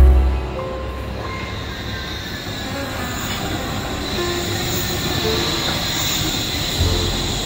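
Wuppertal Schwebebahn suspended train running along the station platform: a steady rumble and hiss of its wheels on the overhead steel rail, with a high whine, growing slightly louder. A heavy low thump at the very start and a smaller one near the end.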